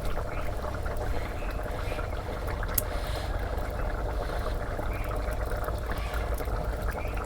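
Chicken curry simmering in a pot over a wood-fired clay stove: a steady bubbling, with one sharp click about three seconds in.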